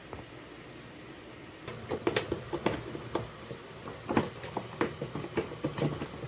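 Irregular small clicks, taps and knocks of objects being handled in a small room, starting after a quiet moment about two seconds in.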